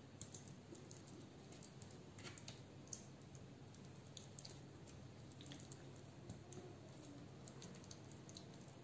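Near silence with scattered faint clicks and soft squelches from a metal spoon spreading thick, creamy chicken pot pie filling in a glass baking dish.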